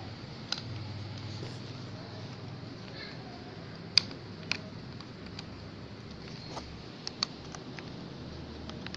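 Scattered light clicks and taps over a steady low hum and hiss. The sharpest click comes about four seconds in, another follows half a second later, and a quick pair comes near seven seconds.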